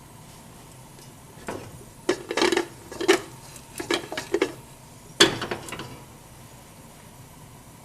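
Metal saucepan and lid being handled on the hob: a run of clattering knocks and rattles between about one and a half and six seconds in, the loudest knock about five seconds in.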